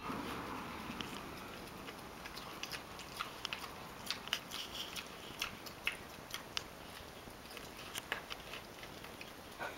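Pot-bellied pig eating from a plastic bowl: chewing with a run of short, sharp, irregular crunches.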